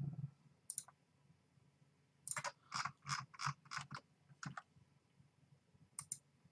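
Computer mouse clicking: a soft low thump at the start, a few scattered clicks, then a quick run of about a dozen clicks between two and four and a half seconds in, and another click near the end.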